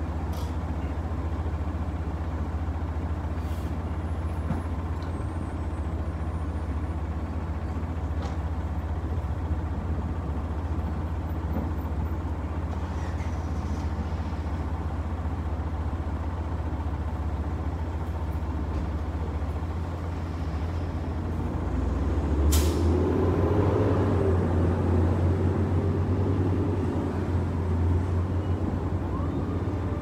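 Wind buffeting the microphone in a steady low rumble, mixed with passing road traffic. About two-thirds of the way through, a vehicle passes and the sound grows louder, with one sharp click.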